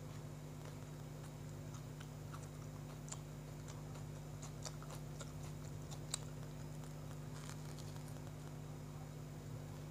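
A person chewing and biting into a soft bread sandwich: faint, scattered wet mouth clicks and small crackles, the sharpest about six seconds in, over a steady low hum.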